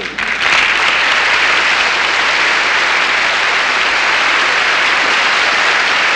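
A large audience applauding, coming in strongly within the first second and holding steady throughout.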